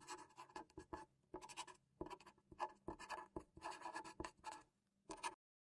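Marker pen writing on a white surface in a faint run of short scratching strokes, which stop a little after five seconds in.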